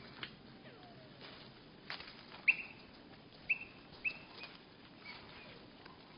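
Small birds at a seed feeder, heard slowed to a third of normal speed, which makes their calls sound low and odd: a few short chirp-like notes, each a brief note that sags slightly in pitch, starting about two seconds in and repeating roughly every second. They are mixed with sharp clicks and taps.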